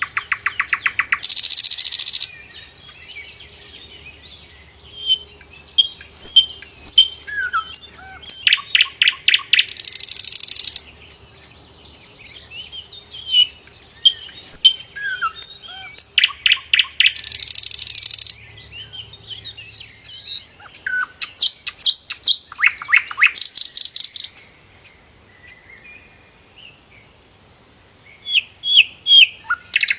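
Sikatan londo flycatcher singing: very rapid trills lasting a second or two, repeated every few seconds, with short high whistled and chirping notes in between.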